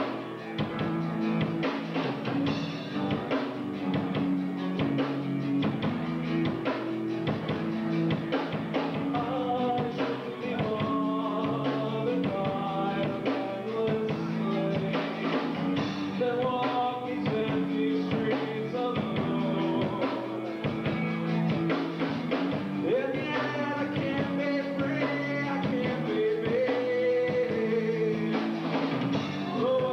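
Rock band playing live, with drum kit and a singing voice over it.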